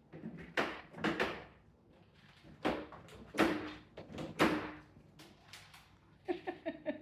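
A cat scratching to cover its waste after using the litter box: a series of separate, sudden scrapes with short gaps between them. Near the end a voice briefly joins in with a quick run of short pulses.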